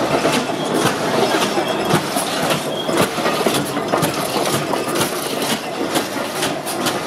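Replica of Richard Trevithick's 1801 Puffing Devil steam road locomotive running along the street: a steady rushing hiss of steam and machinery, broken by irregular clanks and knocks.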